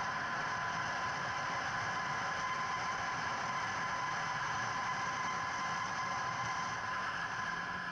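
Steady wind rush and engine drone of a 2009 Kawasaki Ninja 250R's parallel-twin motorcycle engine cruising at an even speed, heard muffled through a waterproof action-camera housing on the rider's helmet.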